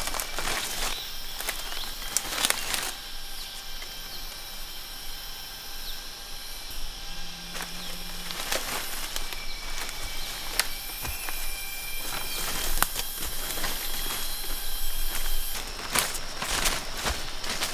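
Forest ambience with a steady high insect hum, broken by rustling and cracking of dry leaves and twigs as someone walks over leaf litter and handles branches.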